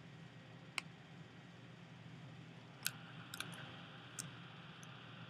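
A few short, sharp clicks of a computer keyboard and mouse over a low steady hum: one about a second in, a quick cluster of three or four around three seconds, and another about four seconds in.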